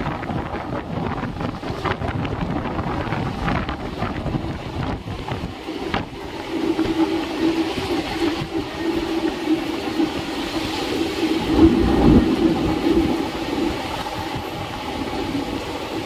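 Passenger train running at speed, heard from an open coach door: wheels clicking over the rails and rushing wind, then a steady droning tone from about six seconds in, loudest near twelve seconds.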